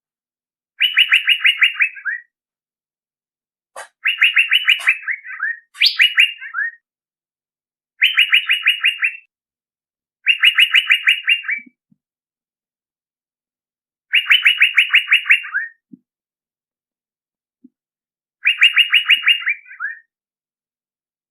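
Male Asian fairy-bluebird calling: short phrases of rapid repeated notes, each about a second or a second and a half long and ending in a lower trailing note. The phrase repeats seven times with pauses of one to four seconds between.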